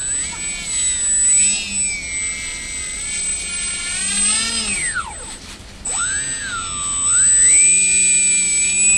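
Electric motor and propeller of a Polaris RC parkflyer seaplane whining as the throttle is worked up and down while it taxis on snow. The pitch rises and falls several times, drops away briefly about five seconds in, then climbs and holds high near the end.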